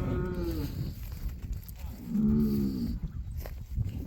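Cow mooing twice: a long call that falls in pitch and ends just under a second in, then a second, shorter moo about two seconds in.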